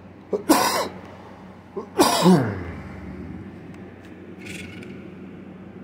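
A man sneezes twice, about a second and a half apart. Each sneeze has a short voiced intake followed by a loud explosive burst.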